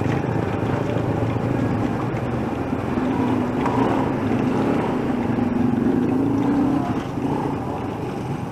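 Low, steady engine rumble of street traffic, with a humming engine tone that swells and fades about halfway through.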